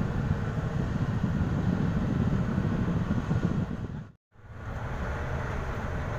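Steady low rumble of a vehicle engine, heard from inside the vehicle. It cuts out completely for a moment about four seconds in, then resumes.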